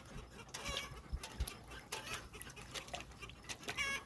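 Faint animal calls, one about a second in and another near the end, over scattered scuffling clicks.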